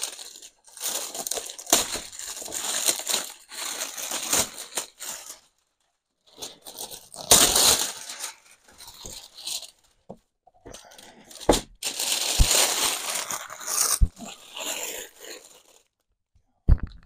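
Plastic wrapping being torn and pulled off a boxed product, crinkling in irregular spells with short pauses between them. A couple of brief knocks, about halfway through and again later, as the box is handled.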